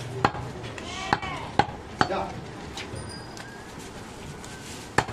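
Butcher's knife chopping goat ribs on a wooden log chopping block: a handful of sharp, unevenly spaced chops, the loudest about one and a half seconds in, with market voices faint behind.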